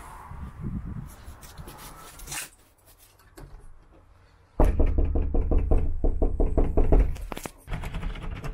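A single sharp knock, then about halfway in a fast run of knocks and thumps at a house's front door, lasting about four seconds as the door is opened.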